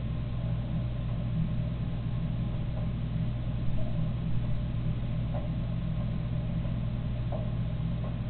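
Steady low electrical hum with a few faint, brief chirps over it.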